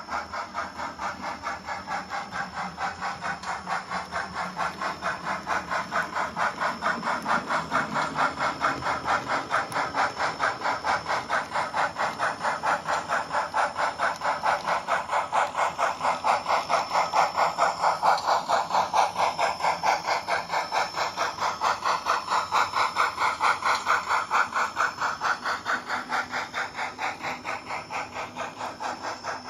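H0n3-scale model of a Colorado & Southern Mogul steam locomotive running with a train of stock cars, its onboard sound playing a steady, even chuffing. The chuffing grows louder through the middle and eases off again near the end.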